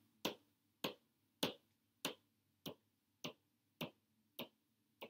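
Light, sharp taps of a plastic pointer on a paper number chart on the wall, nine in a steady rhythm of about one every 0.6 seconds. Each tap marks the next multiple of ten, pacing a skip count by tens.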